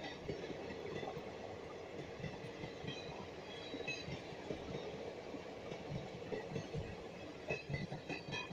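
Blue Indian Railways passenger coaches rolling past, a steady rumble of wheels on rail with clickety-clack over the rail joints. The clacks come sharper and louder near the end.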